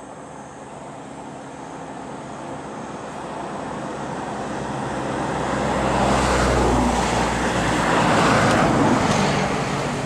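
A motor vehicle passing close by: its engine and tyre noise grows steadily louder, is loudest about six to nine seconds in, then fades away.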